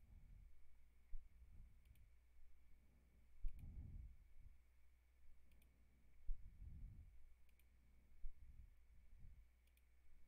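Faint clicks of a computer mouse, about five of them spaced a second or two apart, with a few soft low thumps over a steady low hum.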